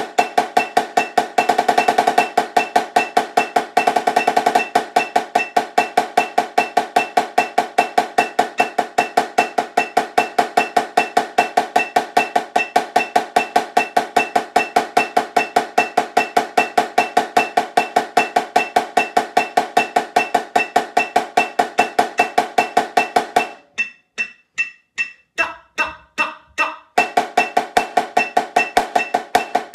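Marching snare drum played with sticks in a fast, even stream of strokes, with a steady high metronome click keeping time. About 23 seconds in the playing drops to a few soft strokes for a few seconds, then the full stream resumes.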